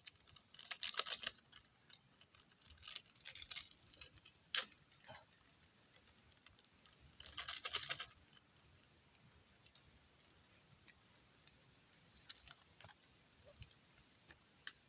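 Crinkling and clicking of cooking by hand: instant-noodle seasoning packets being torn and handled and a utensil clinking, in short bursts of a second or so, the strongest about a second in and again around seven seconds in.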